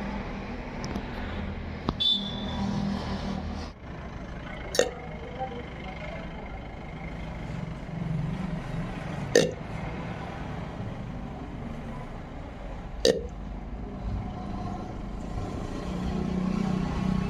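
A woman hiccuping: about four short, sharp hiccups a few seconds apart, over a steady low background hum.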